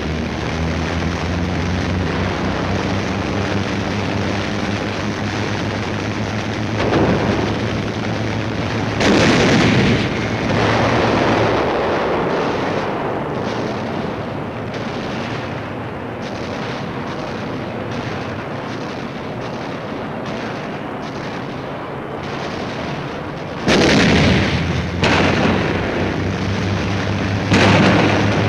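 Landing-craft engines droning steadily, broken by loud explosions: a cluster from about seven to eleven seconds in and another near the end.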